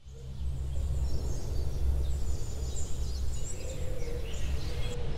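Outdoor nature ambience: a steady low rumble with birds chirping high above it. Near the end it cuts abruptly to a different, steadier background.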